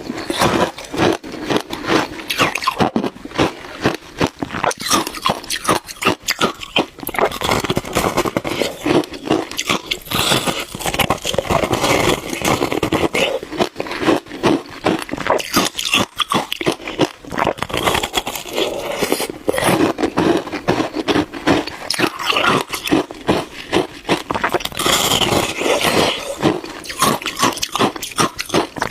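Close-up biting and chewing of shaved ice: a dense, continuous run of small crunches and cracks.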